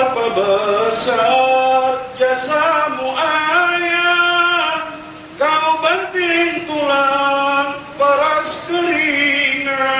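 A man's voice chanting a doa through a microphone and PA in slow, melodic sung phrases, with long held notes that glide in pitch and short breaks between phrases.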